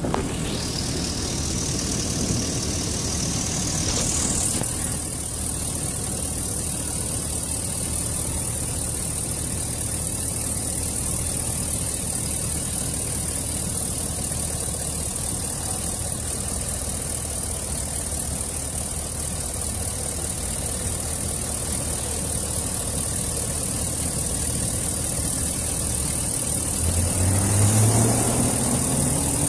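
Pickup truck engine idling steadily at normal idle, heard from over the open engine bay. Near the end a short sound rises in pitch over the hum.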